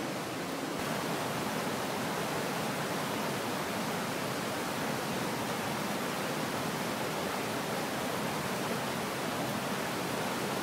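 Steady rush of a flood-swollen creek and waterfall running high after heavy rain, with a slight step up in loudness about a second in.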